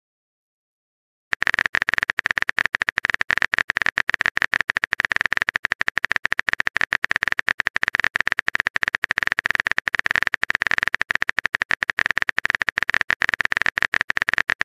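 Typing sound effect of a keyboard: a dense, uneven run of short rapid clicks that starts about a second and a half in and keeps going for about thirteen seconds.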